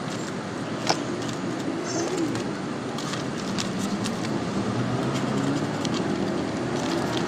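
Black paper and card being handled and cut with scissors: a few sharp clicks and rustles, the loudest about a second in, over a steady low background rumble.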